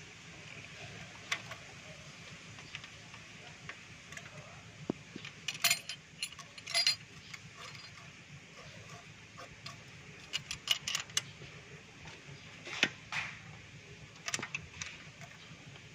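Scattered metallic clicks and clinks of wrenches, a screwdriver and a feeler gauge working the rocker-arm valve-clearance adjusters of a Mitsubishi 4G13 engine, coming in small bunches with quiet gaps between.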